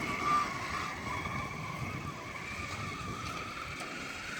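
RC truck's motor and drivetrain whining steadily as it drives, the pitch wavering slightly, over a low rough noise.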